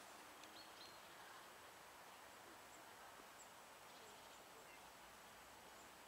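Near silence: faint steady outdoor hiss, with a faint short high chirp about half a second in.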